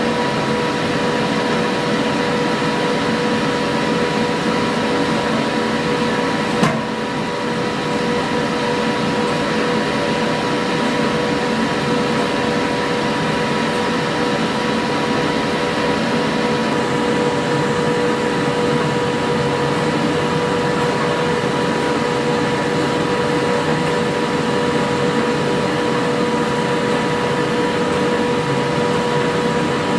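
A forge running steadily, a rushing noise with a steady hum in it, while the blade heats. A single sharp click sounds about seven seconds in.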